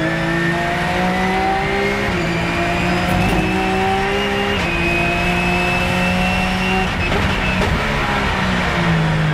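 Porsche 997 GT3 Cup's flat-six race engine heard from inside the cockpit, climbing in pitch under full throttle and upshifting about 2 seconds in and again near the middle. From about two-thirds of the way through, the pitch falls and shifts lower as the car slows.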